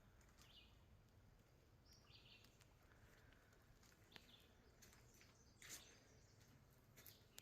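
Near silence, with a few faint, short, high bird chirps and several soft clicks, the loudest about two thirds of the way through.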